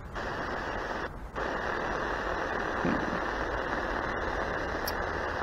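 Static hiss from a radio receiver's speaker while it is tuned with no station coming in, cut off sharply in the treble; the hiss drops out briefly about a second in.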